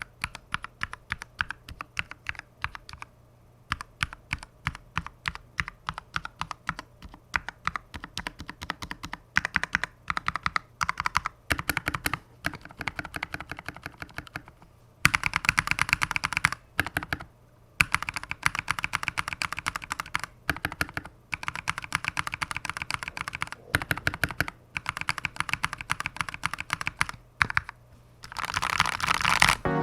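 Typing on a custom GK64X hot-swap mechanical keyboard with lubed NovelKeys Kailh Cream linear switches and thick PBT keycaps, its stabilizers lubed and clipped. Irregular runs of key strokes, with brief pauses, and faster, louder typing in the second half.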